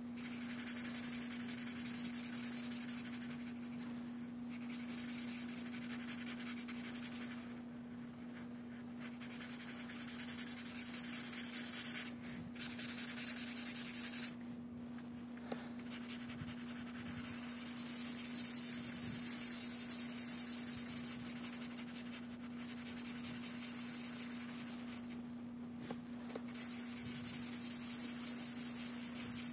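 Felt-tip marker rubbing back and forth on paper, colouring in with quick strokes and a few brief pauses. A steady low hum runs underneath.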